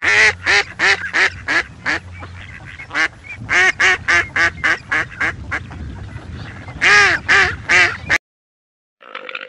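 Duck quacking in rapid runs of short calls, three bursts of several quacks each, cut off suddenly near the end.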